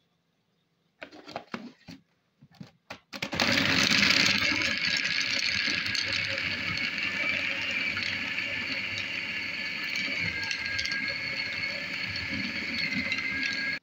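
Electric food chopper: a few clicks and knocks as its lid is fitted, then about three seconds in the motor starts and runs steadily with a high whine, mincing raw chicken with onion, peas and spices, and cuts off suddenly at the end.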